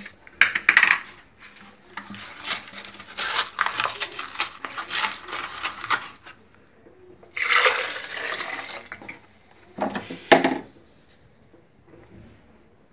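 Milk poured from a carton into a plastic blender jar in two or three pours, after a few knocks as the jar is set down.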